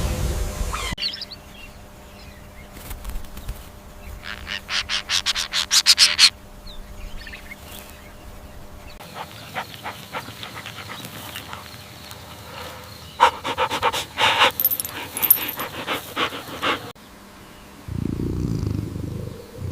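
An animal panting in quick rhythmic breaths, about seven a second, in two runs of a couple of seconds each.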